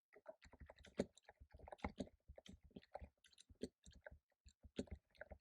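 Typing on a computer keyboard: a quick, irregular run of soft key clicks.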